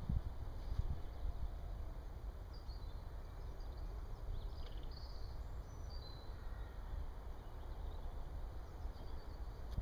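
Open-air ambience: a steady low rumble, with a few faint, short bird chirps a few seconds in.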